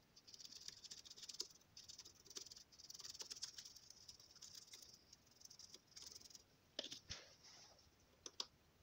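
Faint, irregular light tapping and scratching of a small brush dabbing vulcanizing cement into a cut in a tyre sidewall, with a couple of small clicks about seven seconds in.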